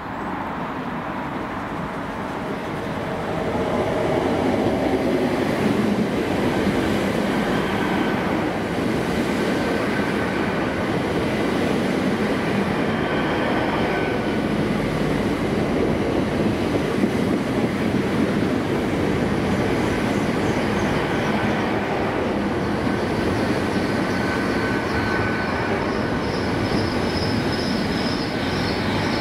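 GWR Class 802 bi-mode train moving slowly along the platform on its underfloor diesel engines, building up over the first few seconds and then running steadily. A thin high whine sits over the running noise.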